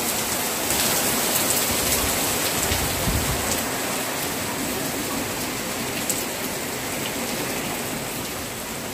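Heavy rain falling steadily, an even hiss with scattered taps of drops.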